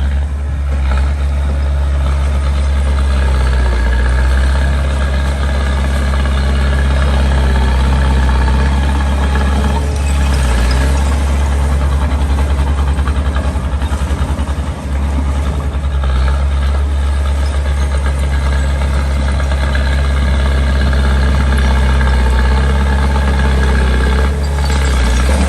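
Small bulldozer's diesel engine running steadily with a deep, constant drone, as the machine pushes sand.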